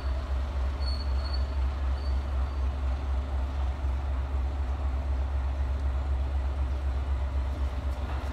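Diesel locomotive idling at a distance: a steady low rumble under a constant outdoor background hiss.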